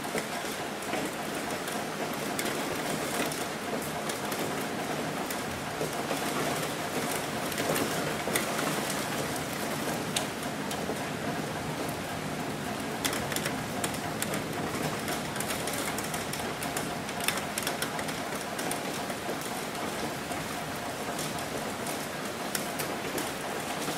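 Steady rain falling: an even hiss with many sharp drop ticks scattered through it.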